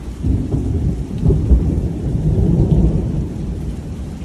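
A peal of thunder rumbles low and loud. It comes in suddenly just after the start, is loudest about a second and a half in, then fades over the next couple of seconds, over steady rain.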